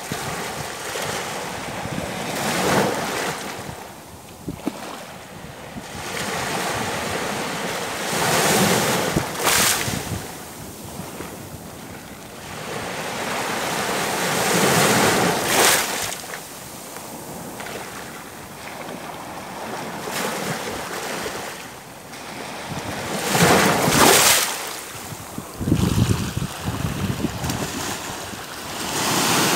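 Small sea waves breaking and washing up a sandy beach, the rush of surf swelling and ebbing in surges several seconds apart, with wind buffeting the microphone.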